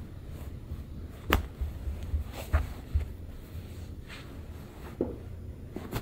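Hands handling a lying patient's head and neck for a neck adjustment: soft rubbing with a few short, sharp clicks, the sharpest about a second in.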